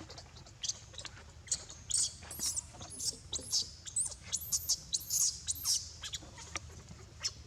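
Newborn monkey crying: a rapid string of short, very high-pitched squealing cries, each rising and falling in pitch, about two a second.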